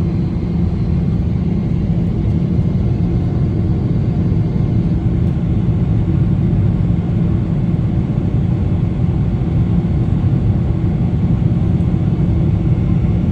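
Steady engine and airflow rumble of a Boeing 777-300ER taking off, heard inside the cabin, with a steady low hum over it.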